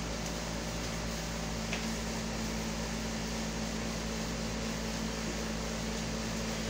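Window air conditioner running, a steady hum and whoosh with no change.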